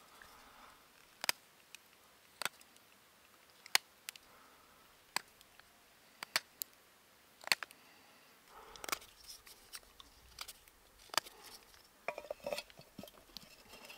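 Knife carving a small piece of wood, rounding its edges: sharp single cuts about once a second at first, then quicker runs of small cuts and scraping in the second half.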